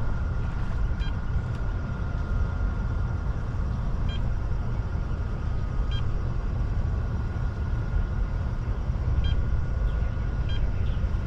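A boat motor running steadily, a constant low rumble with a thin steady whine over it, and short high beeps every second or few.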